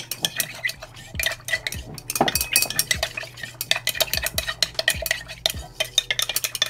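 A stirrer clinking quickly and unevenly against the inside of a glass beaker as a watery solution is stirred, many light ringing taps a second.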